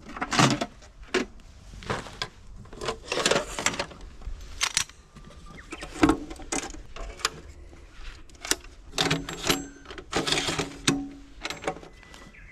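Ginkaku aluminium fishing platform being pulled from a gear bag and its metal legs unfolded: a string of sharp clicks, clinks and rattles, several ringing briefly, amid rustling of the bag.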